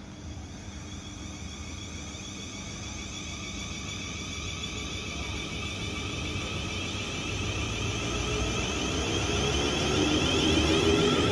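A train approaching through the station, its sound growing steadily louder, with a high whine of several steady tones over a low rumble.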